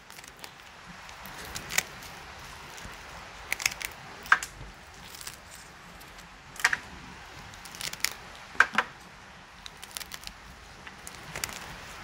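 Pruning shears snipping through an orchid's old, dead roots: about a dozen sharp snips at irregular intervals, a second or two apart.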